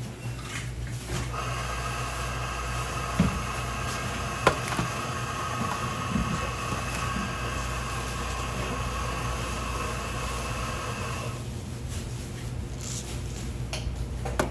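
A small electric motor in a kitchen appliance runs with a steady whine for about ten seconds and then cuts off, over a low steady hum. There are two sharp knocks a few seconds in.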